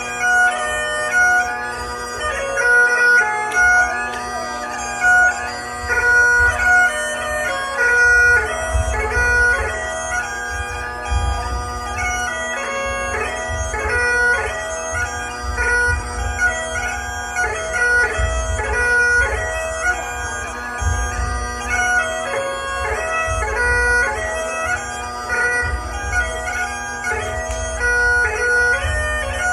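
Highland bagpipes playing a dance tune, the melody running quickly over the steady drones.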